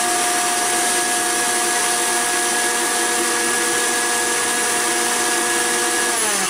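Electric mixer grinder with a steel jar running steadily, blending watermelon pulp into slush. Near the end it is switched off and its whine falls as the motor winds down.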